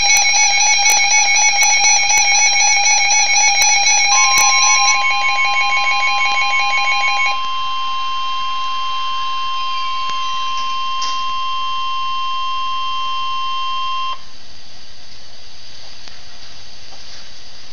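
Emergency alert tones on a weather radio broadcast ahead of a severe thunderstorm warning. A warbling electronic alarm beep runs to about 7 s in. A steady single-pitched warning tone, the NOAA Weather Radio warning alarm, starts about 4 s in and cuts off sharply about 14 s in, leaving steady radio hiss.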